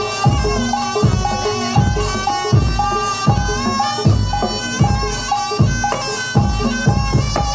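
Javanese barongan accompaniment music: a shrill reed wind instrument playing a melody over a steady beat of low drum strokes.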